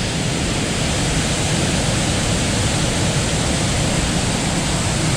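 Steady, even rush of fast-flowing water from the waterfall and river.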